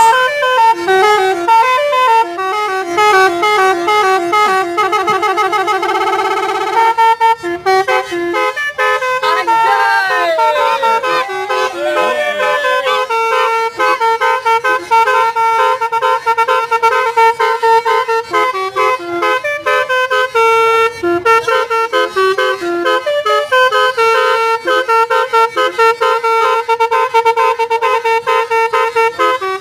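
The 'telolet' horn tune played on a pianika (melodica), in reedy, horn-like notes. It opens with a fast rippling run of alternating notes, breaks briefly, slides down through a few falling tones, then settles into a repeating tune.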